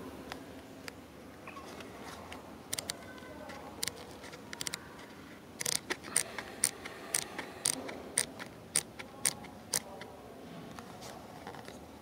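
A series of sharp clicks over a steady low background noise: a few scattered ones at first, then about two a second from the middle until shortly before the end.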